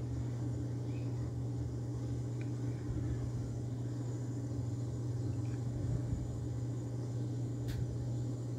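Steady low background hum in a small room, with a faint click near the end.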